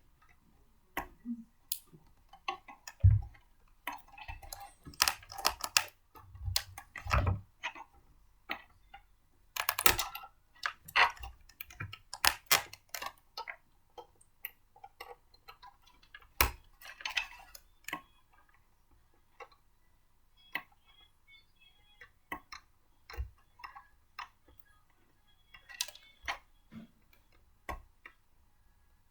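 Blender parts being handled and fitted together by hand: irregular clicks and knocks, with a few heavier knocks about 3, 7 and 16 seconds in.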